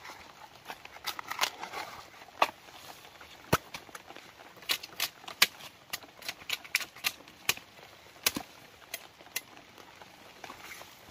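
Machete chopping and peeling the sheath off a bamboo shoot: a string of sharp, irregular knocks and cracks of the blade on the shoot, stopping shortly before the end.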